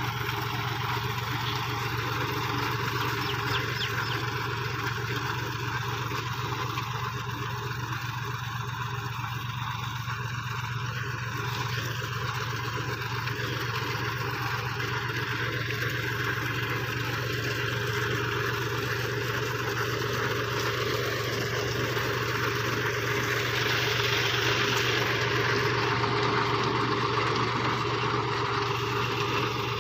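Tractor engine running steadily while it pulls a potato digger through the ground, with the digger's noise as it lifts soil and potatoes. It gets louder over the last several seconds.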